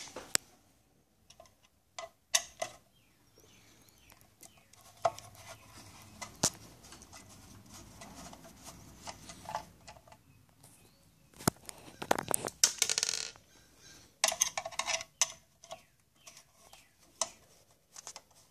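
Screwdriver taking the screws out of a metal amplifier case: scattered metallic clicks and scrapes, with a longer rattle about twelve seconds in and another burst of clinks shortly after.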